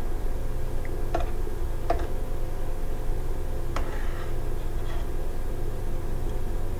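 A metal spoon skimming foam off simmering chicken soup in a stainless steel pot, clinking lightly against the pot three times, over a steady low hum.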